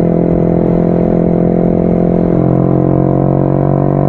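Yamaha XSR 155's single-cylinder engine running steadily under way. Its note steps down slightly in pitch a little over halfway through.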